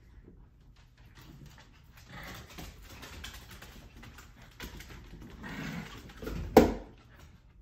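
A litter of small puppies playing and scuffling on a hardwood floor, with one sudden, sharp loud sound near the end.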